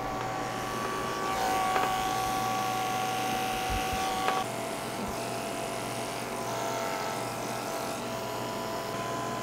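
Electric pet grooming clippers running while shaving a Persian cat's coat: a steady hum whose pitch steps down about four and a half seconds in and shifts again near seven seconds.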